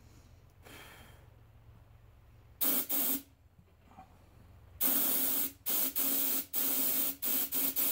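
Compressed air hissing through a trigger-type tire inflator into a lawn tractor tire's valve stem, in bursts: two short ones, then a longer run broken by several quick pauses as the trigger is released and squeezed again.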